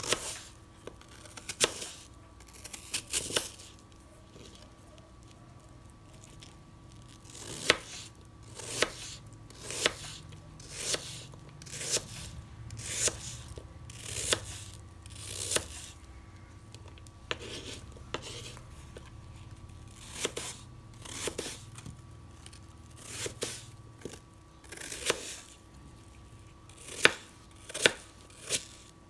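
Kitchen knife slicing peeled apple on a wooden cutting board: crisp cuts through the fruit, about one a second with a few pauses and a quicker run near the end.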